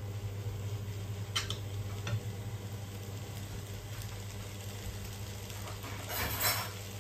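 A metal fork stirring fried instant noodles in a nonstick frying pan, clicking against the pan twice about a second and a half in, then a soft sizzle from the pan, with a short louder hiss about six seconds in. A steady low hum runs underneath.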